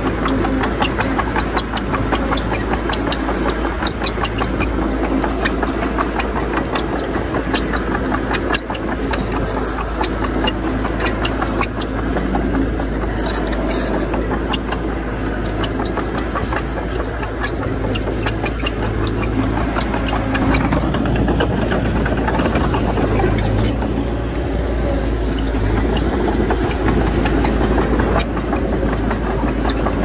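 Bulldozer's diesel engine running steadily, with a constant patter of small clicks and rattles over it.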